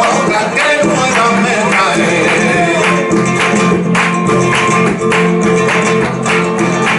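Group of men singing a Christmas villancico to a nylon-string Spanish guitar, with hand-clapping (palmas) keeping the rhythm, the claps standing out more clearly from about halfway through.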